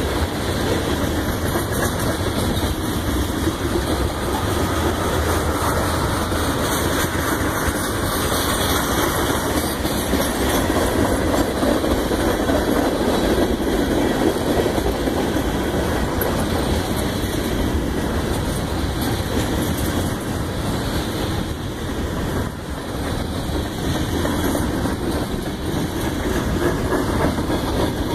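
CSX freight train rolling past: a steady, loud noise of its cars' wheels running on the rails.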